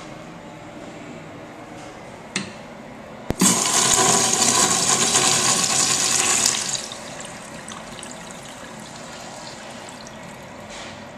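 2000s Crane Plumbing urinal flushed by its chrome flushometer valve: a sharp click about three seconds in, then a loud rush of water for about three seconds that falls off sharply as the valve closes.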